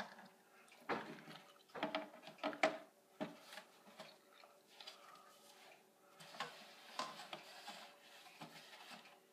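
Light knocks and clatter of plastic dolls and dollhouse pieces being handled and set down, a cluster of sharp taps in the first few seconds and fainter handling after.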